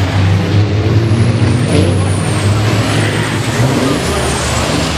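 Racing truck's diesel engine running loud and steady under power, with a high whistle that slides down in pitch and starts again about every second and a half.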